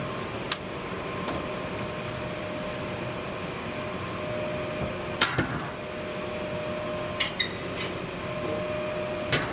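Steady fan-like mechanical hum with a faint steady tone, broken by a few sharp clicks and knocks.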